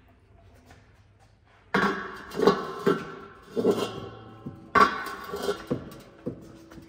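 Metal clattering and knocks from an oil drain pan on its telescoping stand being moved and raised under the car, ringing after the louder hits. One loud clatter comes about two seconds in and another about five seconds in, with a few lighter knocks after.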